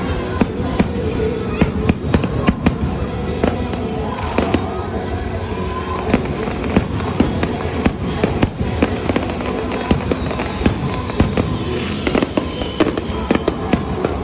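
Rapid, irregular crackling and popping, many sharp cracks a second, over background music and voices.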